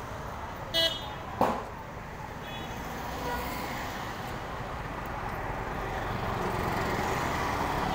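Street traffic noise, a steady rumble that grows slowly louder toward the end, with two short sharp clinks about a second in.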